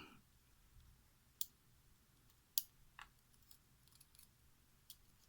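A handful of faint, sharp clicks of small metal lock parts and tools being handled as a pin-tumbler lock is taken apart, the loudest about halfway through.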